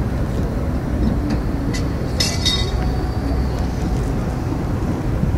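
Outdoor harbour ambience: a steady low rumble, with a short burst of metallic clinking about two seconds in.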